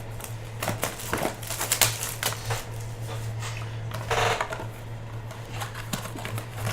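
Hands opening sealed trading-card hobby boxes: a run of small clicks and crinkly rustles of cardboard and plastic wrap, with a longer tearing rustle about four seconds in, over a steady low hum.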